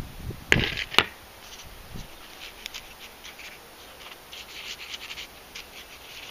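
Two sharp knocks about half a second apart as a scoop of compost is tipped into a plastic plant pot. Then soft scratching and rustling as fingers firm gritty John Innes No. 2 compost with perlite around a seedling.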